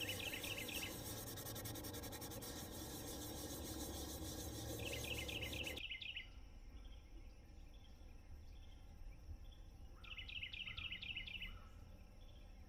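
Steady low wind rumble outdoors, with a songbird's high, rapid trill heard three times, about five seconds apart.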